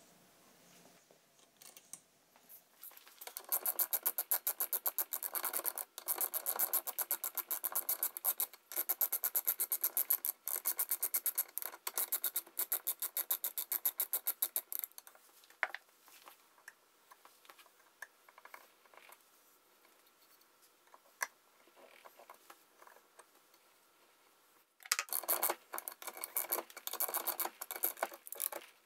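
Socket ratchet clicking rapidly as it runs the nuts down onto the steering-arm studs of a swivel housing. It goes in a long spell of quick strokes with short breaks, a pause, and a second shorter spell near the end.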